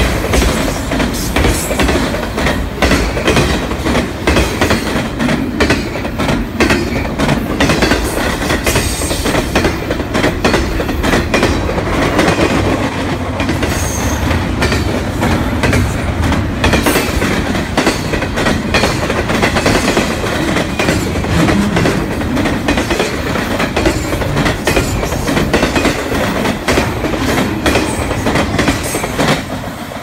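Freight train of autorack and double-stack container cars rolling past close by: a steady rumble of steel wheels on rail with rapid, continuous clacking.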